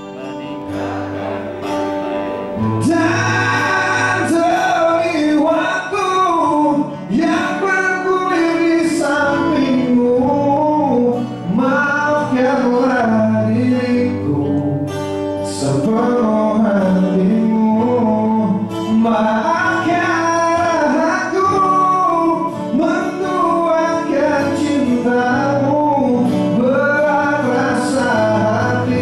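Male singer singing a pop song live into a handheld microphone over instrumental accompaniment, amplified through the hall's sound system, with a melodic line of held, gliding notes.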